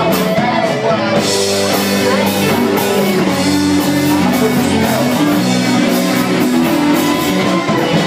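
Live band music with guitar to the fore and no singing, a steady beat running under sustained notes.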